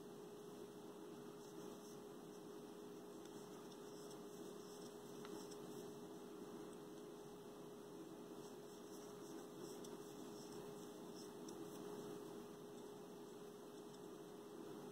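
Near silence: a steady low electrical hum, with faint soft ticks and rustles of a crochet hook working yarn, more of them in the second half.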